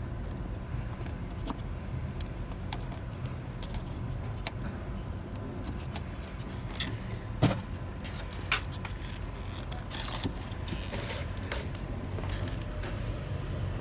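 Small metallic clicks, taps and rattles of tools and electronic parts being handled while soldering a 7805 regulator onto an amplifier board, with a sharp click about halfway through and another a second later. A steady low rumble runs underneath.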